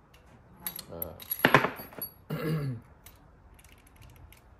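Small metal carburetor parts clicking and clinking as they are handled during a jet change, with a louder metallic clatter about a second and a half in.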